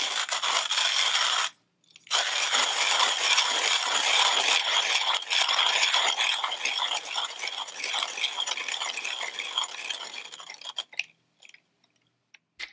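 Timemore Chestnut S3 hand coffee grinder grinding beans: a dense crunching and crackling of beans breaking between its spike-to-cut conical steel burrs. It stops briefly about a second and a half in, starts again, then thins out to a few scattered cracks and dies away about ten seconds in.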